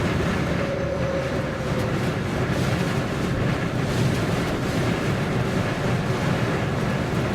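Wind noise from strong, gusty wind blowing at about 50 mph around a parked vehicle, heard from inside as a steady, heavy rush with small swells.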